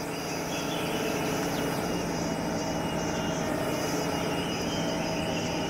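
Engine of a cable-logging tractor running steadily under load as it winches a log in by cable, with a low hum underneath.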